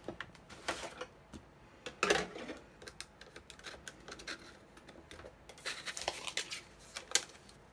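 Hands handling cardstock and clear plastic cutting plates on a die-cutting machine's platform: scattered paper rustles and sharp plastic clicks, the loudest about two seconds in and near the end.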